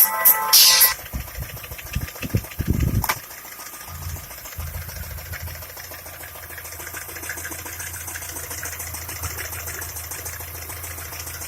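Škoda Octavia A5 1.6 MPI petrol engine idling with a fast, light, even ticking knock: the engine knock whose cause the owner is asking about. Several louder clunks and a sharp click come first, and the steady idle sets in about four seconds in.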